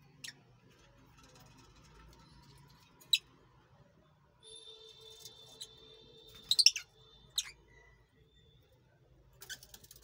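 Fischer's lovebirds giving short high-pitched chirps, scattered singly, with a quick cluster of them about six and a half seconds in that is the loudest. A steady high tone runs under the calls from about four and a half to seven and a half seconds.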